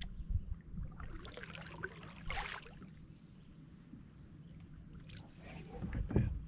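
Kayak paddle dipping and pulling through shallow water, with a short splash about two and a half seconds in. A dull thump near the end.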